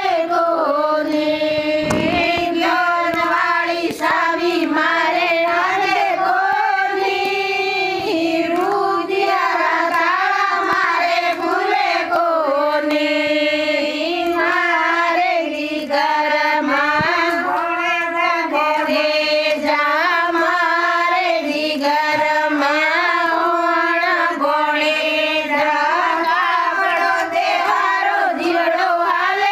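Women singing a bhajan, a Hindu devotional song, in continuous melodic phrases.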